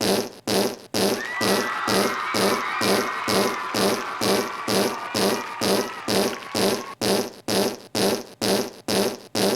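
Fart sound effect repeating in an even rhythm, about two and a half a second, with a wavering higher tone layered over it from about one second in until about seven seconds in.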